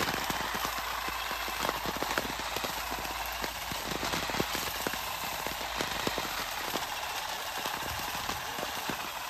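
Battery-powered electric olive harvester on a pole, its motor humming steadily under rapid, irregular clicking and rattling as its spinning tines beat through the olive branches to knock the olives loose.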